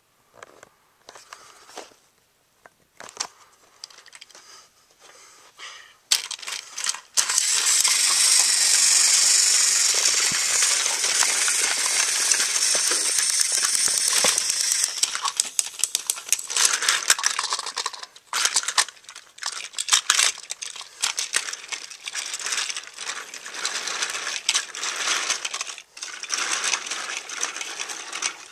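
Battery-powered TOMY toy trains running on plastic track: irregular clicking and rattling of the wheels and track. A loud steady whirring noise runs from about seven to fifteen seconds in.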